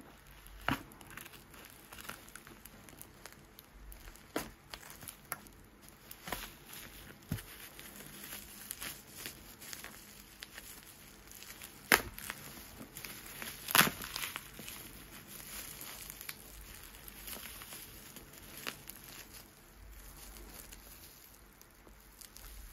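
Plastic parcel wrapping and bubble wrap handled and pulled open, crinkling and crackling, with irregular sharp snaps. Two louder snaps come about halfway through.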